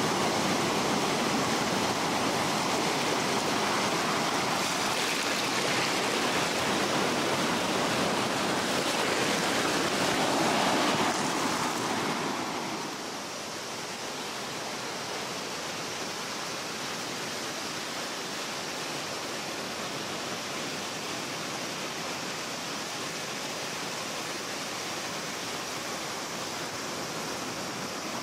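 Small sea waves washing in and fizzing over rocks at the shoreline, a steady rush of water. About twelve seconds in, it drops to a softer, even hiss.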